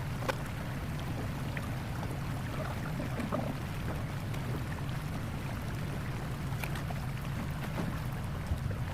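Excavator's diesel engine running steadily, a low even hum with a few faint knocks over it.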